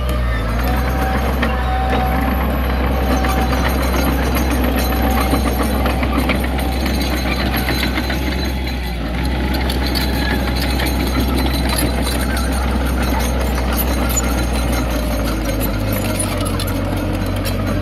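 Heavy earthmoving machinery's diesel engine running, a steady low drone with a dense clatter over it; the low drone changes about 16 seconds in.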